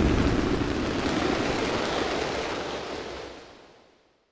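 Fireworks display: a dense, rumbling wash of aerial shell bursts that fades away to silence near the end.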